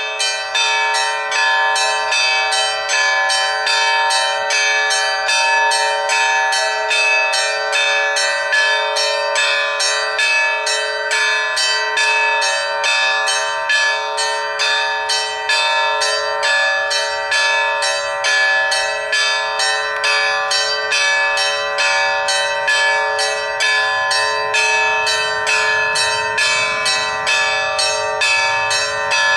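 Village church bells rung together in a fast, continuous peal, several strikes a second, their tones overlapping and ringing on.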